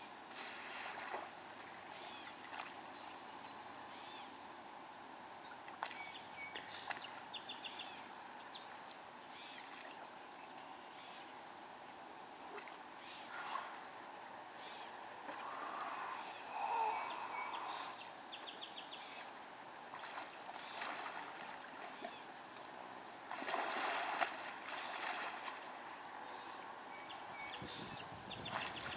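Water ambience around hippos in a muddy river: water sloshing with a few splashes, faint high bird chirps repeating over a steady background hiss, and a louder rush of noise about three-quarters of the way through.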